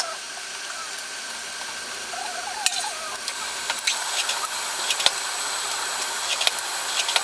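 Bench drill press running steadily with a hissing whir, with scattered sharp ticks as the bit cuts into a small wooden block.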